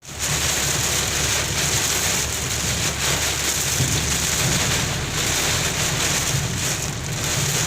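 Heavy rain with hail pelting down, a steady dense downpour.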